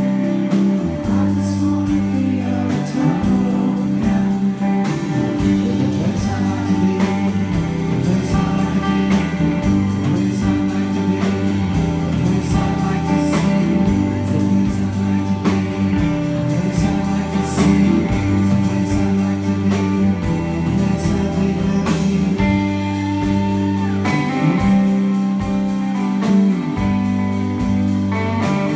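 Live rock band playing, recorded from the audience: electric guitar and drums with a man singing over them.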